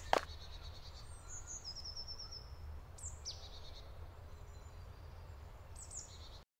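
Forest ambience: small birds chirping high up, with a quick trill of repeated notes and a short falling call, over a low steady rumble. A sharp knock right at the start, and the sound cuts off near the end.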